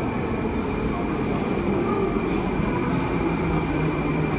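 Metro train running: a steady rumble with a thin high whine held over it.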